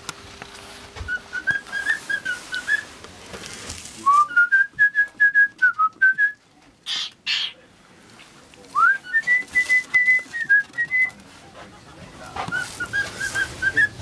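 A whistled tune in four phrases of quick, clear notes, some phrases opening with a rising note and the third held higher and steadier. Two short hissing sounds come about seven seconds in.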